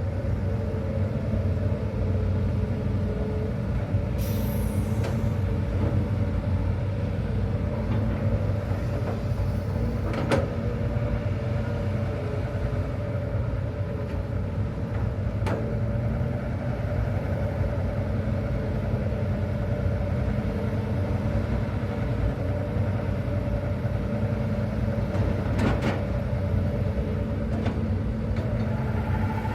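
Hitachi ZX200-5G excavator's diesel engine running steadily at working speed, with a few sharp knocks and a brief hiss about four seconds in.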